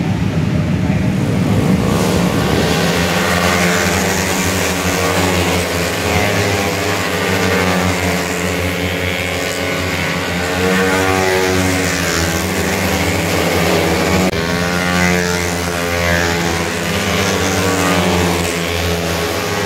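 Several small-capacity racing motorcycles revving hard through a corner, their engines overlapping and rising and falling in pitch as riders shift and pass.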